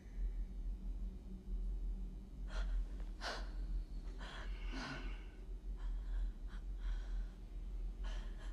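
Heavy, ragged human breathing: a run of sharp gasping breaths starting a couple of seconds in, over a low steady hum.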